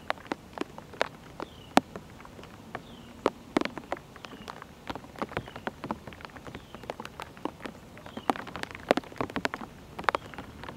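Raindrops tapping close to the microphone: irregular sharp ticks of varying loudness over a light hiss. A faint high chirp recurs every second or two.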